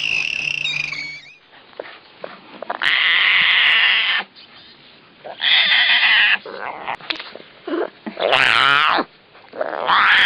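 A cat yowling: four loud, drawn-out calls of about a second each with wavering pitch, separated by short pauses. A different animal call from the previous clip cuts off about a second in.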